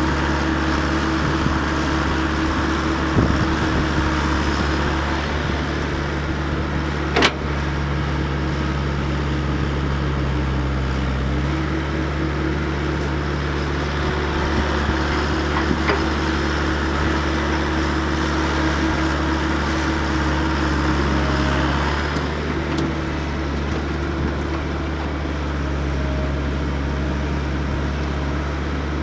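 Komatsu PC120 hydraulic excavator's diesel engine running steadily under digging load, its note shifting a couple of times as the load changes. One sharp knock about seven seconds in.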